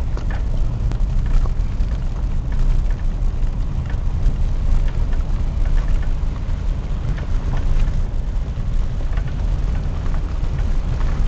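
Vehicle road noise heard from inside a moving car: a steady low rumble with scattered small rattles and knocks.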